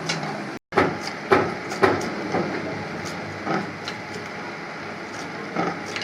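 Irregular sharp knocks and clinks of work on engine parts over a steady low hum, with a brief cut to silence just over half a second in.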